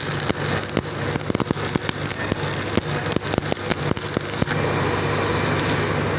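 Stick-welding arc crackling and sputtering over a steady low machine hum. The crackle stops about four and a half seconds in, leaving only the hum.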